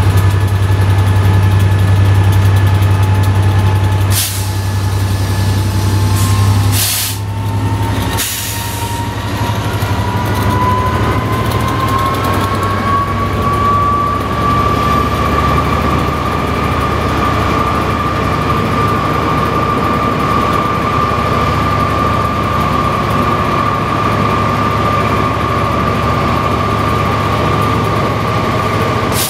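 Class 67 diesel-electric locomotive 67003 powering away with its train, heard from the coach window just behind it: a steady low drone at first, a few short bursts of noise between about four and nine seconds in, then a whine that rises in pitch over several seconds and holds steady as the train gathers speed.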